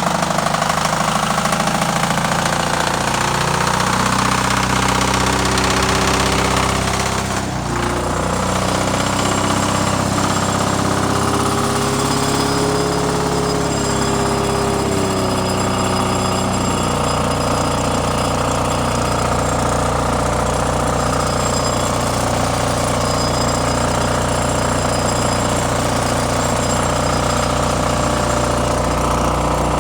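MEP-002A 5 kW military diesel generator running just after a cold start, with a steady diesel clatter. Its engine note wavers and shifts during the first half, with a brief dip, then settles into a steady run.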